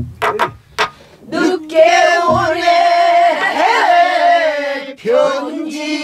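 Pansori singing by a woman: a long held note with vibrato that swoops in pitch partway through, then a new phrase about five seconds in. It is preceded by a few sharp strokes on a buk barrel drum in the first second or so.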